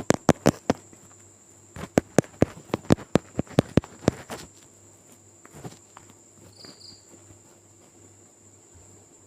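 Night nature ambience: a steady high-pitched insect drone, with quick runs of sharp clicks or snaps in the first half that then stop.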